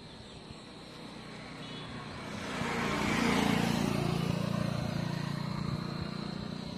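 A road vehicle driving past close by, its engine and tyre noise swelling over a couple of seconds and then slowly fading.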